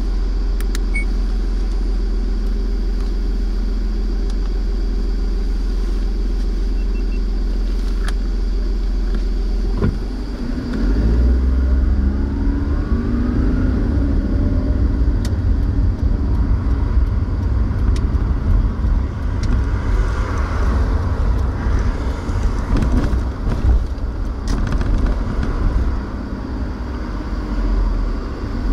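Car engine idling with a steady low hum, heard from inside the cabin. About ten seconds in, a louder, uneven rumble sets in, with a rising whine shortly after and scattered clicks.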